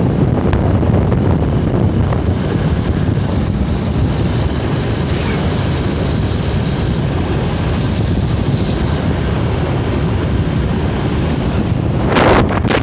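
Wind rushing over a phone microphone on a moving motorbike, with a steady low rumble from the ride. A louder gust hits the microphone near the end.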